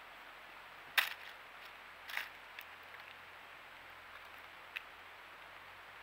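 Eastern gray squirrel cracking seed at a tray feeder: a few sharp clicks, the loudest about a second in, over a steady hiss.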